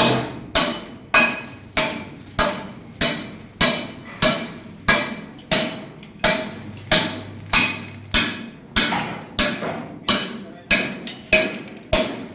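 Hammer striking steel in a steady rhythm of a little under two blows a second, each blow ringing briefly.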